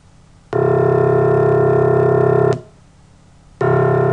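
Two steady, low, computer-generated tones, each about two seconds long, starting and stopping abruptly. Each is a sum of pure tones at the frequencies and amplitudes sampled from the line spectrum of a piano's C1 note, built to imitate that note.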